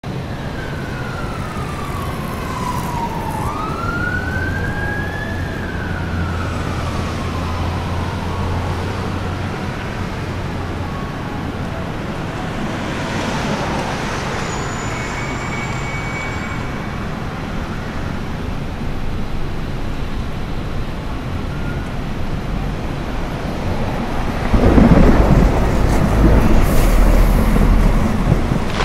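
City traffic ambience with a steady hum, and a siren wailing slowly down, up and down again in the first nine seconds. About 24 seconds in, a loud rumble of thunder sets in.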